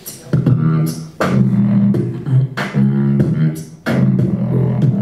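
Vocal beatboxing: a held, humming bass line, broken by sharp percussive hits roughly every second.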